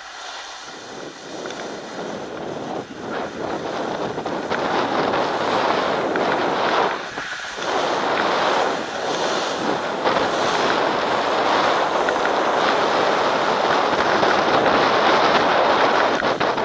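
A snowboard scraping and chattering over firm groomed snow, mixed with wind buffeting the microphone. It gets louder over the first few seconds as speed builds, with a brief dip about seven seconds in.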